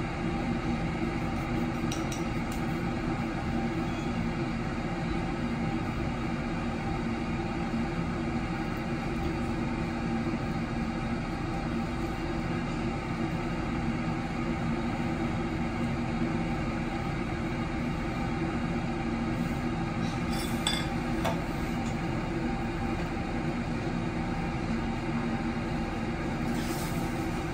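Steady mechanical hum of a restaurant dining room, with a few faint clinks of glass or tableware about two-thirds of the way in and again near the end.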